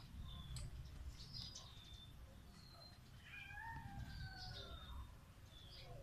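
Faint, short, high bird chirps several times, and about halfway through a long cat meow that slides down in pitch.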